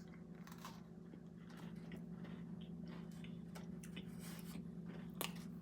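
Faint chewing of a soft s'more, with a few small mouth clicks over a steady low hum.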